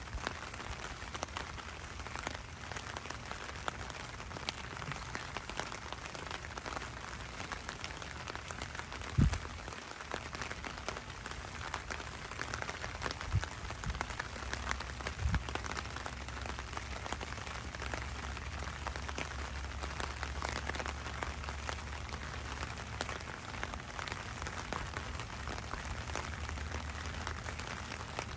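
Steady rain falling on wet pavement, a continuous hiss sprinkled with the patter of single drops. A few dull low thumps stand out, the loudest about nine seconds in, and a low rumble runs underneath for several seconds in the middle.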